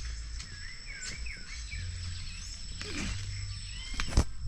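Birds chirping in short, warbling calls over a steady high-pitched insect drone and a low rumble, with one sharp knock near the end.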